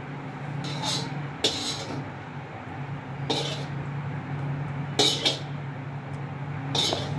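A metal ladle scraping and clinking against a wok as gravy is scooped out, about five short scrapes spread apart, over a steady low hum.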